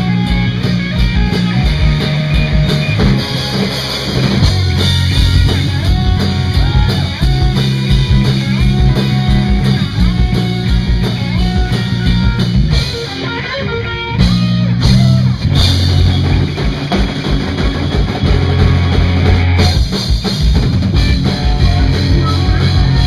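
Live punk-rock band playing an instrumental passage: electric guitars, bass guitar and drum kit, loud and steady, with a brief drop in the middle before the full band comes back in.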